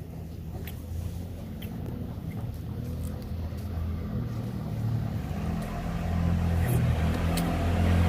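Construction machine's engine running, heard from inside its cab: a steady low hum that gradually grows louder.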